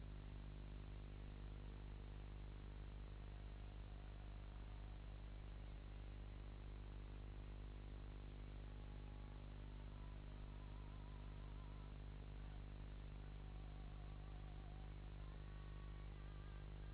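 Steady electrical hum and hiss from an old film soundtrack, with faint music of wavering, quavering notes coming in from about halfway through.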